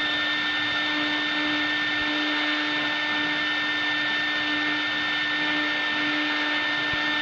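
W1325CR CNC router spindle running with a steady high whine as its bit carves a wooden cylinder turning on the rotary axis.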